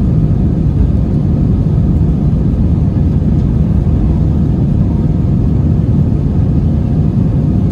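Airbus A320-200 engine and airflow noise heard inside the passenger cabin: a steady low rumble that holds level, without a clear rise or fall.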